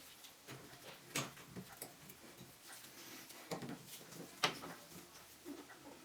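Faint clicks, taps and light scrapes of small parts being handled at a Moen shower valve while the new cartridge and its retaining clip are worked into place, with a sharper click about four and a half seconds in.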